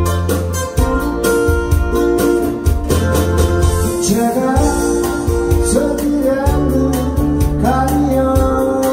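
A man sings a Korean pop song with acoustic guitar over a backing track with a steady drum beat and bass. His voice comes in a few seconds in.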